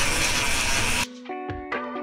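A steady hiss of compressed air that stops abruptly about a second in, followed by plucked guitar notes of background music.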